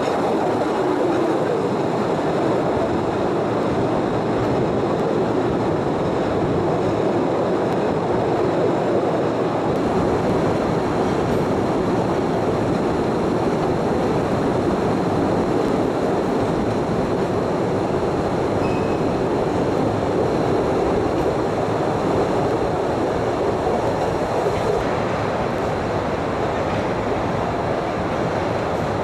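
Postojna Cave tourist train running along its narrow-gauge track: a steady rumble of wheels on rails, heard from aboard an open carriage.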